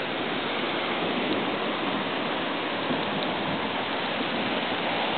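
Steady rain mixed with the even rushing of a creek in flood, running high over its banks.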